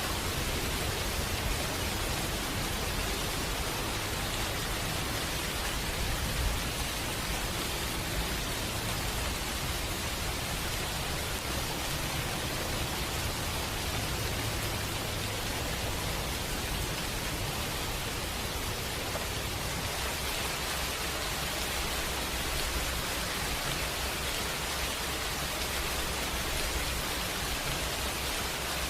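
Steady rain, an even hiss of falling rain with a low rumble underneath.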